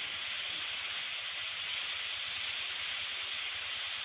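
Steady, even hiss of background noise with no beep or voice.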